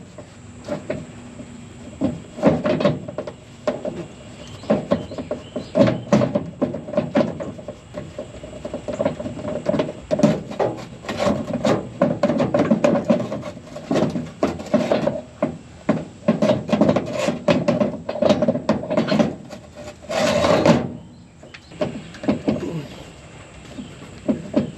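Clanks and knocks of hand tools and metal parts being worked on a combine, over a steady hum, with a short rushing burst about twenty seconds in.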